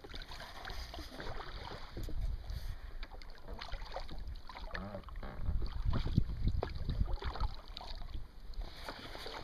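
Water lapping and splashing around a two-seat inflatable boat drifting on a river, with wind rumbling on the microphone that is strongest a little after the middle.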